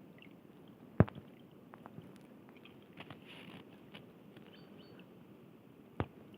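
Two sharp clicks, one about a second in and one near the end, with softer scattered ticks and crackles between them over a faint steady background.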